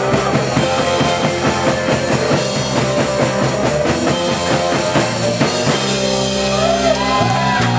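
Live rock band playing loud, with a driving drum kit beat under guitar and bass. About five and a half seconds in the drumming stops and a held chord rings on: the song's closing chord.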